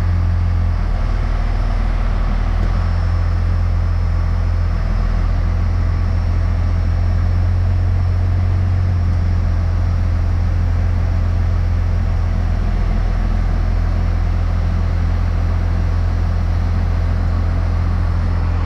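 First-generation Dodge Cummins 5.9-litre inline-six turbodiesel running steadily with no throttle, a little loud.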